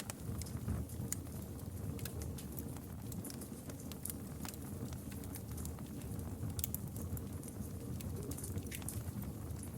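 Campfire burning with irregular sharp crackles and pops over a low steady rumble of the flames.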